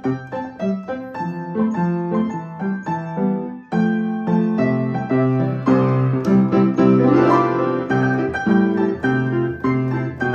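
Upright piano played with both hands, a running melody over lower notes, growing fuller and louder about four seconds in.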